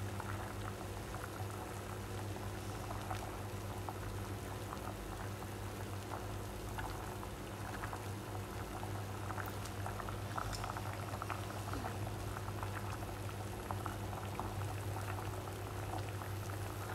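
Water at a rolling boil in a stainless steel pot of sliced squash, a continuous bubbling with many small pops and crackles, over a steady low hum.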